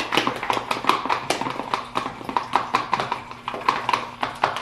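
Hands squeezing and kneading sticky fluffy slime, making rapid irregular wet clicks and pops.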